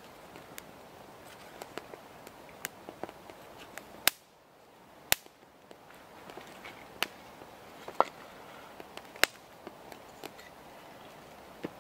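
Dry kindling sticks snapped by hand: a handful of sharp cracks a second or so apart, over the small ticks and crackle of a freshly lit wood-wool and kindling fire.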